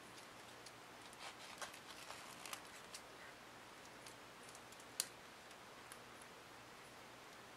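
Faint handling sounds: small clicks and rustles of fingers working a tag's string loop off a nylon watch strap's metal buckle, with one sharper click about five seconds in.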